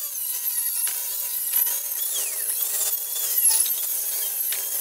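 Handheld circular saw running steadily and cutting through the overhanging ends of wooden deck boards to trim them flush.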